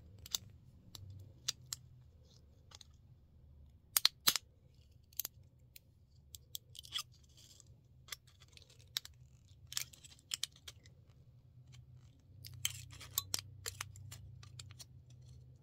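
Thin sheet tin being handled and worked with hand tools at a bench vise. Scattered sharp clicks and snaps, with a loud close pair about four seconds in and a busy cluster near the end.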